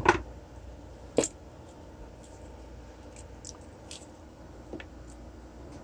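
Small handling clicks and taps: one sharp click about a second in, then a few faint ticks, over a low steady background hum.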